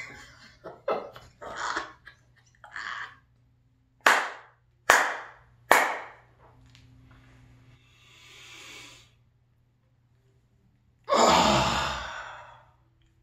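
A man breathing out in short bursts, with three sharp exhalations about a second apart a few seconds in. Near the end comes a long, loud sigh.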